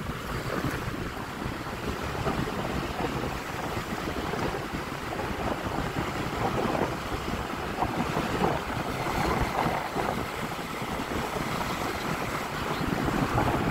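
Wind buffeting the microphone of a riding scooter, a Honda Click 125i, with its engine and the road noise underneath as a steady rush.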